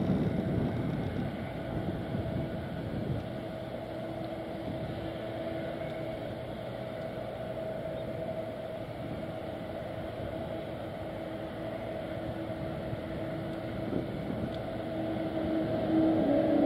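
Twin-engine jet airliner's turbofan engines running at low power on the runway with a steady whine over a low rumble, then spooling up and growing louder near the end as takeoff thrust is set.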